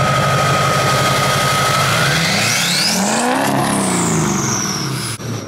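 Chevrolet Silverado pickup's diesel engine revved once, its turbo whistling. A high steady whistle at idle climbs as the engine revs about two seconds in, then winds down in a long falling whine.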